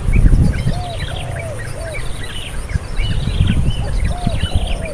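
Several birds calling together: many short, high chirps, with a lower two-note call repeated every second or so, over a low rumble like wind or handling noise.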